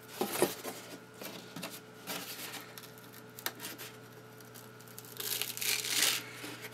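Foamboard being bent along a scored line: the foam core cracks and the paper facing crinkles as the elevon is folded, leaving the paper as a hinge. The loudest crackling comes about five to six seconds in.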